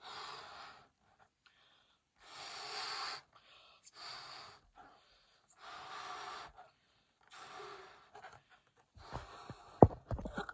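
Latex balloon being blown up by mouth: a series of about five or six long puffs of breath into it, a second or so each, with short pauses between. Near the end come handling noises and one sharp knock, the loudest sound.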